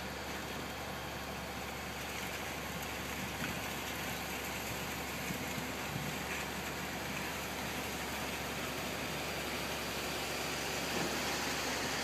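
Concrete boom pump truck's diesel engine running steadily as it pumps concrete into the footings through the boom.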